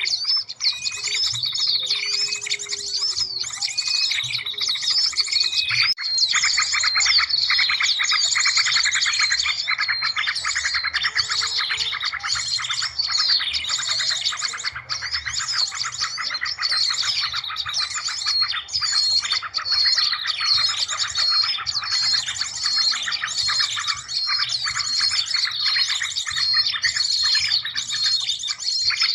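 A dense chorus of many small songbirds chirping and trilling over one another, with repeated short high calls throughout and a fast buzzing trill joining about six seconds in. It is a bird-lure ('suara pikat') recording made to draw small birds in, with a few low whistled notes in the first few seconds.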